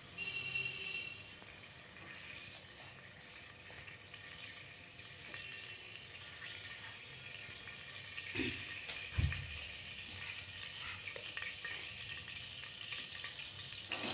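Cooking oil heating in the bottom of a pressure cooker, a faint steady sizzling hiss that grows a little toward the end. Two dull knocks come a little past the middle.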